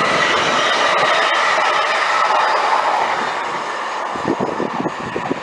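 Class 350 electric multiple unit running through the station: rail and wheel noise with a steady whine, easing off about four seconds in.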